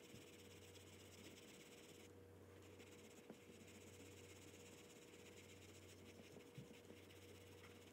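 Faint scratching of an oil pastel stick being rubbed across paper, with a few small ticks, over a steady low hum.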